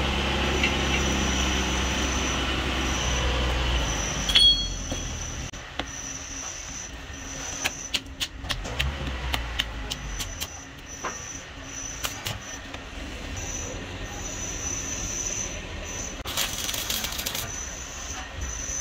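Gas cutting torch hissing as steel is heated, with a low machine hum for the first four seconds, a sharp metal clank about four seconds in, then scattered light metal clinks.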